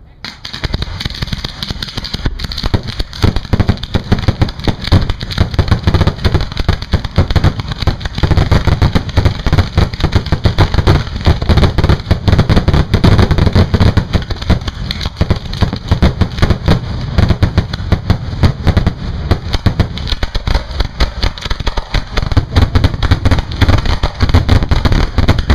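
Fireworks finale barrage: a dense, continuous volley of shell launches and aerial bursts, the bangs overlapping with no gap, starting abruptly at full strength.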